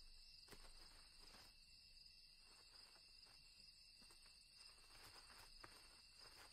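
Near silence: a faint steady high-pitched hum, like night insects, with a few faint clicks scattered through.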